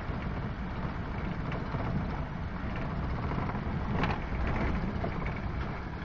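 Vehicle driving on a gravel road: steady tyre and road rumble with gravel crackling under the wheels, briefly louder about four seconds in.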